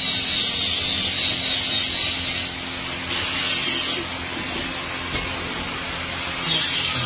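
Steady hiss with a low hum around a coal-fired furnace of molten aluminium; the hiss drops away and comes back a couple of times.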